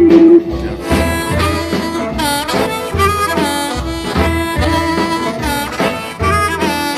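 Diatonic harmonica in A played with tongue blocking, a blues riff with several bent notes that dip and return in pitch, over a backing with a steady repeating low pulse.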